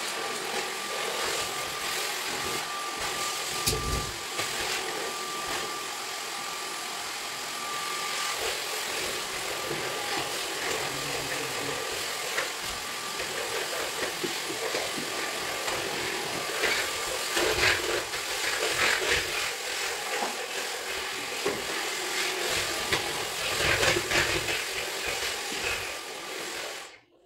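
Vacuum cleaner motor running steadily, with a thin whine over it for the first several seconds. Its sound shifts as it is worked over the floor, and it cuts off abruptly near the end.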